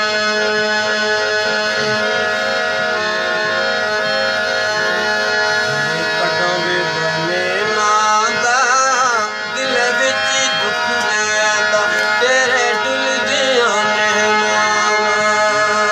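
Hand-pumped harmonium playing sustained, steady chords. About halfway through, a voice joins with wavering, ornamented phrases.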